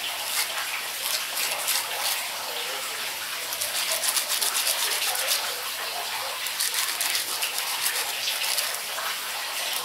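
A hard Cassia fistula (golden shower tree) seed rubbed back and forth on sandpaper in quick, rough scratching strokes. The seed coat at its tip is being abraded to break the seed's dormancy before soaking and sowing.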